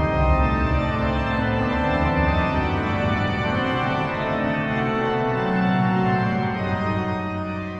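Organ music playing sustained chords, starting to fade out near the end.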